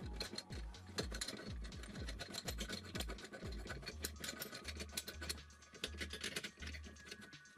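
Rapid metallic clicking and scraping as the top nut on a VW Polo 86c shock absorber's piston rod is worked. The clicking is densest early and thins out after about three and a half seconds. Underneath runs the steady bass beat of background music.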